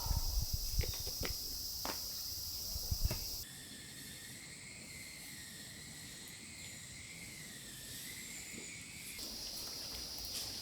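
Steady high-pitched chorus of summer insects, with a few sharp knocks in the first three seconds. The sound changes abruptly to a quieter, wavering insect buzz about three and a half seconds in, and the steady chorus returns near the end.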